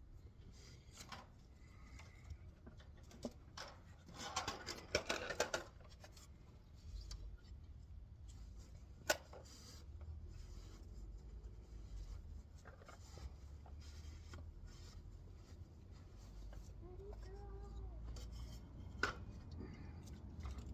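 Quiet handling of tools and small-engine parts: scattered scrapes, rubs and light clicks, with a denser run of scraping about four seconds in and one sharp click about nine seconds in, over a steady low hum.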